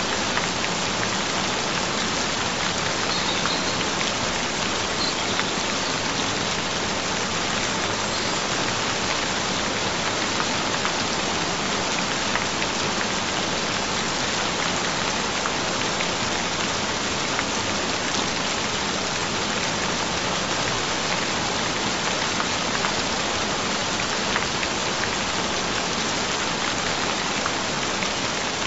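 Steady rain falling, a dense even patter of drops.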